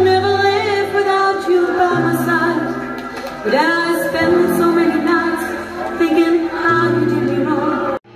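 A drag performer singing a slow song into a microphone over a backing track, amplified through a bar's speakers, with long held, wavering notes over a sustained bass line. The sound breaks off suddenly near the end.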